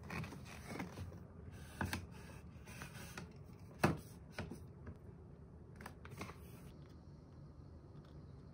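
Scattered plastic-and-metal clicks and knocks from a foldable fan's telescopic stand being pulled out and handled, the loudest knock about four seconds in.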